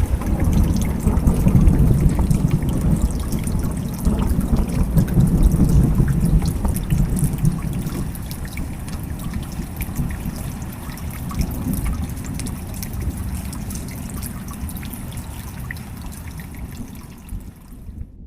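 Storm rain falling hard, a dense patter over a low rumble, slowly fading and then cutting off just before the end.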